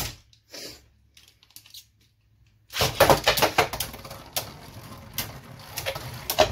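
Beyblade Burst spinning tops, Brave Valkyrie and Master Diabolos, clattering and whirring on a plastic stadium. There is a short clatter at the start. About three seconds in comes a louder, dense clatter, which settles into a steady rattling whirr with occasional sharp clicks as the tops knock together.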